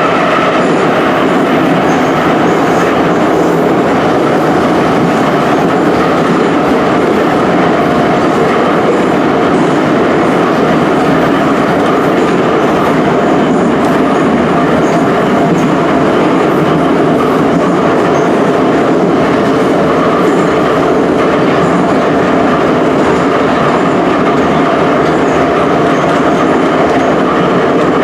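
Ezh3/Em-508T metro train running at speed between stations, heard from inside the car: a loud, steady rumble of wheels on rail with a faint steady whine.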